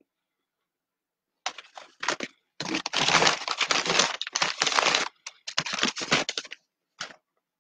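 Crunching and chewing of a crispy fried Popeyes chicken sandwich, close to the microphone. It starts about a second and a half in and goes on in dense, crackly bouts for about five seconds, with a few small clicks near the end.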